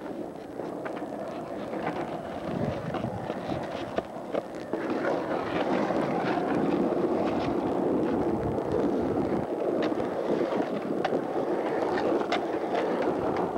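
Skateboard wheels rolling over rough pool concrete: a steady grinding rumble with scattered clicks from grit and cracks under the wheels. It gets louder about five seconds in.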